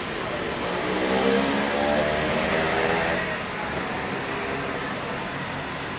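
A motor vehicle passing: an engine note that rises slowly in pitch and grows louder for about three seconds, then fades into a steady background hum.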